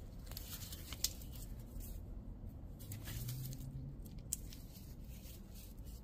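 Faint handling noise of a WW2 .50 cal machine-gun charger being turned over in gloved hands: light rustles and a couple of short clicks, about a second in and past four seconds in.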